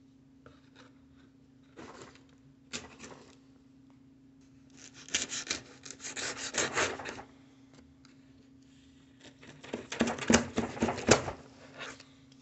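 Knife blade slicing and scraping through packing tape along the seam of a cardboard box, in a few separate rasping strokes: short ones early, then longer runs of scraping about five and ten seconds in.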